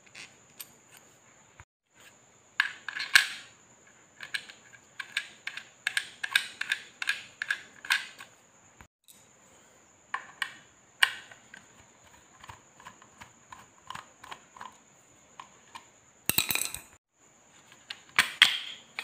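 Clicks, taps and knocks of hard parts being handled and fitted together: a sight's mounting screw, rail mount and housing, with a louder clatter twice near the end. A faint steady high-pitched tone runs underneath.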